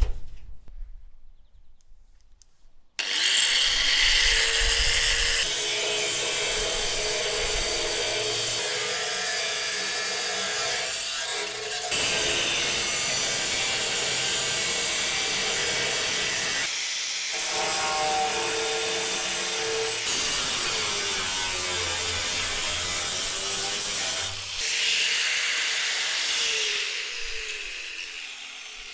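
Angle grinder with a cutting disc cutting through the lid of a rusty metal barrel: a steady whine with a grinding hiss. It starts about three seconds in, runs in several long passes with short breaks, and tails off near the end.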